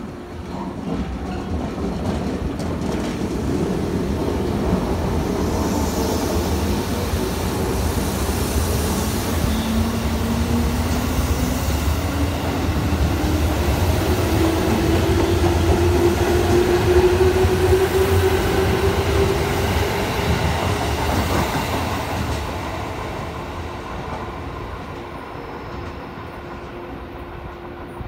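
JR West 221 series electric train, two sets coupled, pulling away and accelerating past the platform. Its motor whine rises steadily in pitch and its wheels clack over the rail joints; the sound is loudest as the cars go by and fades away near the end.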